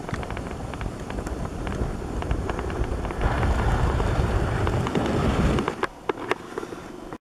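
Camera handling noise on the camcorder's microphone: a low rumble with scattered clicks and knocks, swelling about three seconds in while the camera is swung around and dropping off again near the end.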